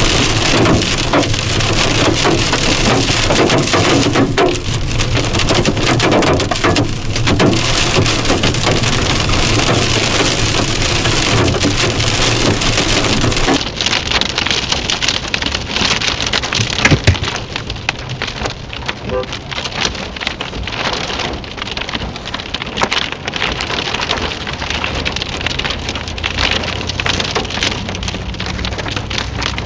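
Hail and heavy rain pelting a car's roof and windshield: a dense, loud clatter of hard hits over a steady rush. About fourteen seconds in it cuts to a lighter pelting.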